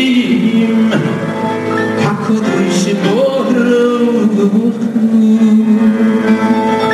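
A man singing a slow Jewish song live with long held, gliding notes into a microphone, over live guitar and keyboard accompaniment.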